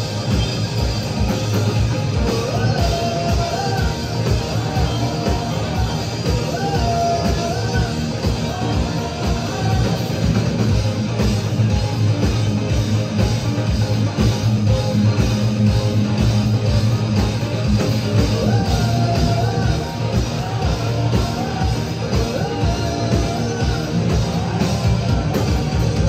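Live rock band playing loudly, with a steady kick-drum beat under guitars and a wavering melody line.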